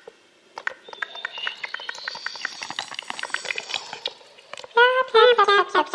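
Designed cartoon sound effects: fast clicking under a slowly rising whistle-like tone for about three seconds, then a run of loud, squeaky pitched calls near the end.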